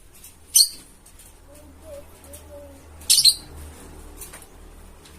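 Lovebird giving short, sharp, high-pitched chirps: one about half a second in, and a quick double chirp about three seconds in.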